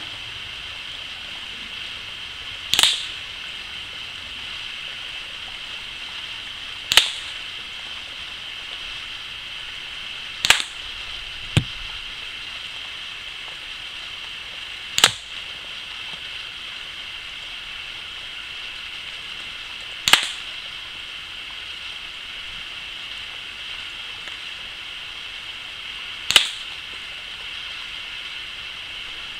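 Six shots from an Air Arms Pro Sport .177 spring-piston air rifle, each a sharp crack, spaced about three to six seconds apart. A single extra sharp click comes about a second after the third shot. A steady hiss runs underneath.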